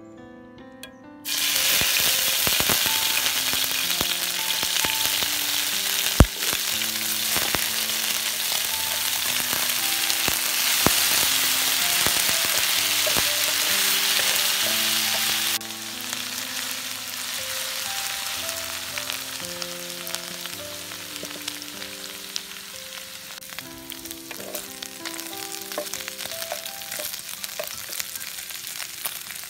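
Boiled chicken and potato pieces frying in hot oil in a nonstick pan: a loud, steady sizzle starts suddenly about a second in as the food hits the oil, with a sharp knock about six seconds in. About halfway through it cuts to a quieter sizzle with scattered crackles. Soft piano music plays throughout.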